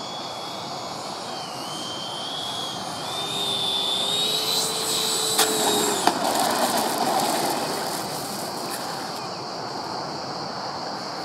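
The Freewing Gripen RC jet's 80 mm nine-blade electric ducted fan whines as the model comes in low, rising in pitch and getting louder. About six seconds in it cuts off with a sharp knock as the model touches down. A rough rolling rush follows as it rolls along the dirt strip.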